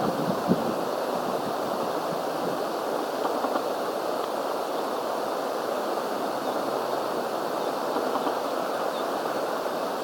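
Wind buffeting the microphone: a steady rushing noise, gustier near the start.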